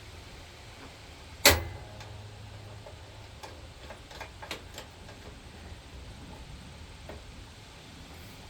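A sharp metal clank that rings briefly, about a second and a half in, followed by a few light clicks and ticks of metal tools and parts being handled while an idler pulley is fitted on a riding mower.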